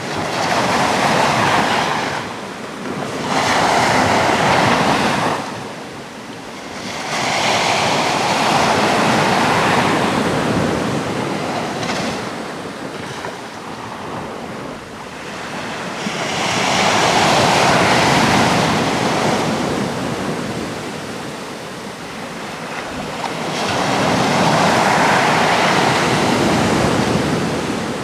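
Sea waves breaking and washing on the shore, in about five slow surges of rushing surf that swell and ebb over several seconds each.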